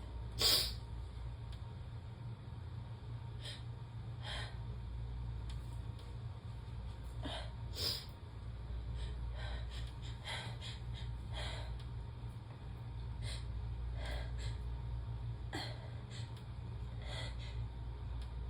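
Sneezing fit brought on by snuffed Chhinkni sneezing powder. Sharp sneezes let out through the mouth with the nose pinched, the loudest about half a second in and another near eight seconds, with short gasping breaths and sniffs between them, over a steady low hum.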